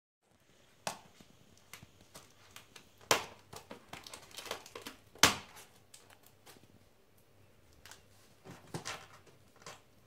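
A cat clawing and biting at a taped cardboard box, making irregular sharp scratches and rips of cardboard and packing tape. The loudest rips come about three and five seconds in.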